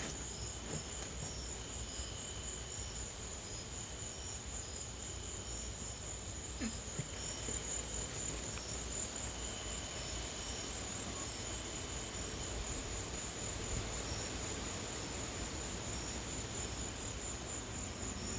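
Night insects, crickets among them, trilling steadily: a continuous high pulsing trill with shorter chirps repeating over it, above a low rumble of light wind.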